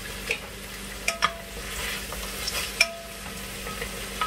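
Plant-based sausages sizzling in a splash of chicken broth and oil in an enameled Dutch oven, stirred with a wooden spatula. The stirring is steady, and the spatula knocks sharply against the pot several times, some knocks leaving a brief ring.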